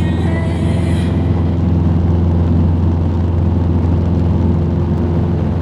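Cessna 150's Continental O-200 four-cylinder engine and propeller droning steadily in flight.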